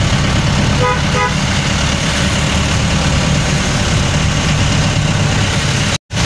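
Steady engine and wet-road rumble heard from inside a moving vehicle in heavy rain, with a car horn tooting twice in quick succession about a second in. The sound cuts out briefly near the end.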